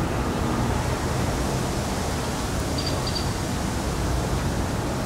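Steady rushing background noise with a low hum underneath; no distinct tool clicks stand out.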